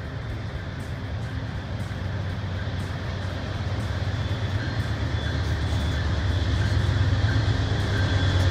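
A GE C44-9W (Dash 9) diesel-electric locomotive approaching at the head of a grain train, its low engine rumble growing gradually louder as it nears.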